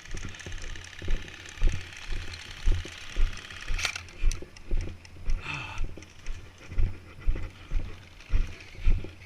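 Footsteps of the camera wearer walking at a steady pace, about two steps a second, with a sharp click a little before four seconds in.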